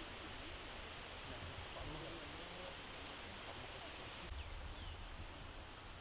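Outdoor ambience: steady hiss with a low rumble of wind on the microphone, faint distant voices in the first couple of seconds, and a few short high chirps.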